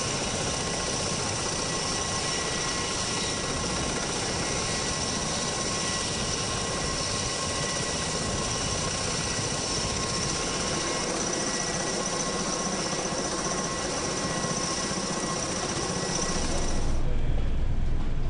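Turboshaft engines and rotors of an MV-22 Osprey tiltrotor running on a ship's flight deck: a steady rushing noise with a high whine. Near the end it cuts abruptly to a deeper, lower rumble.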